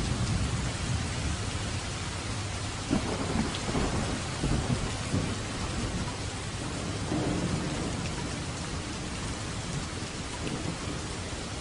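Steady rain hissing, with a low roll of thunder rumbling in about three seconds in, swelling a couple of times and dying away a few seconds later.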